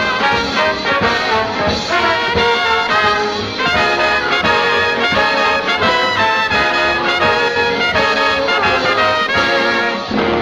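Big-band swing music with trumpets and trombones playing over a steady beat, a dance number from an old film soundtrack.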